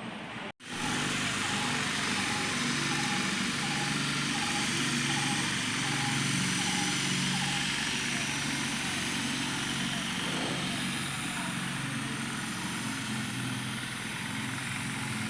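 A small vehicle engine running steadily, with road and wind noise. A short repeating beep sounds about twice a second through the first few seconds.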